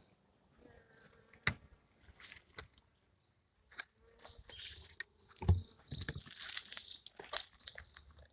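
Small birds chirping in short repeated calls, with scattered sharp clicks and knocks and one louder dull thump a little past the middle.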